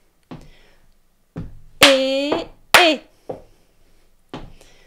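Footsteps on a wooden floor marking a steady beat about once a second, with a woman's voice sounding the syncopated rhythm on an 'é' syllable: one held note about two seconds in, then a short one with a falling pitch.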